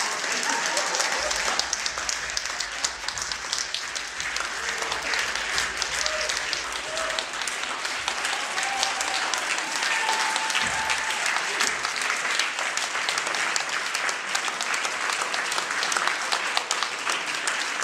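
Audience applauding steadily, a dense patter of many hands clapping, with a few voices faintly through it.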